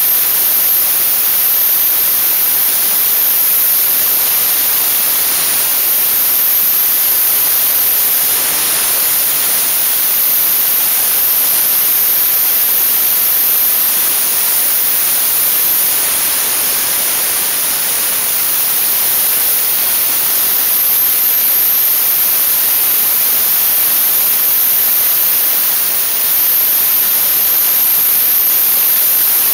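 Dry-ice blasting nozzle giving a steady, loud, high hiss of compressed air and dry-ice pellets.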